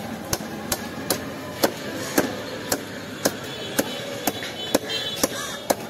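A wooden stick beating the back of a large knife blade, driving it through the head of a big boal catfish: sharp, evenly spaced knocks about two a second.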